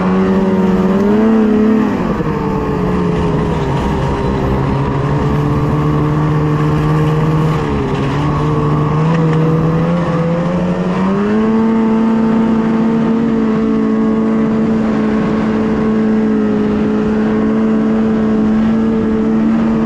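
Ski-Doo snowmobile engine running under way, its pitch shifting with the throttle: it rises and drops about two seconds in, dips briefly again, then climbs about halfway through and holds steady.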